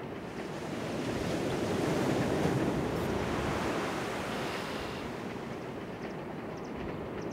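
Ocean surf: a wave rushing in, swelling to a peak about two to three seconds in and then easing off.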